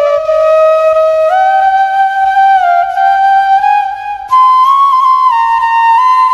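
Background music: a solo melody of long held notes that step up and down in pitch, moving to a higher register about four seconds in.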